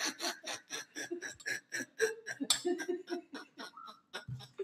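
A woman laughing helplessly and mostly under her breath, in rapid short breathy bursts about five a second, thinning out near the end.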